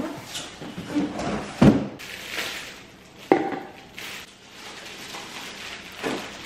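An ice cream maker being unboxed: the cardboard box and its plastic-wrapped parts rustle as they are handled. Two sharp knocks come about a second and a half in and again after three seconds.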